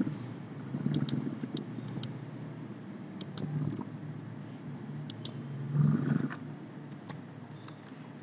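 Computer mouse clicking, about a dozen sharp clicks, often in quick pairs, over a low steady background hum.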